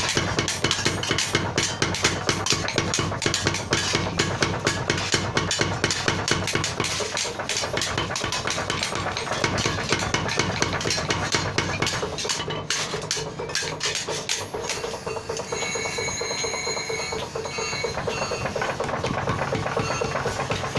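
Power hammer striking red-hot steel in rapid, even blows, several a second. The blows ease off about twelve seconds in and pick up again near the end, while a few steady tones sound in the gap.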